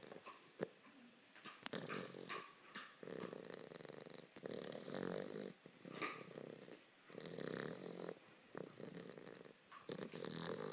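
A sleeping puppy snoring loudly, one snore on each breath, coming roughly every two to three seconds.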